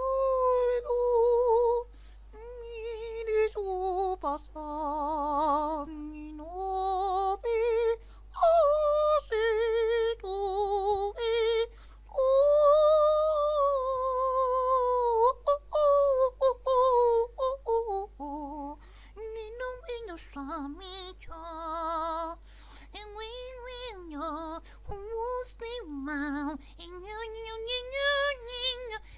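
A high solo singing voice with no accompaniment, holding long notes with a wide vibrato, in phrases broken by short pauses.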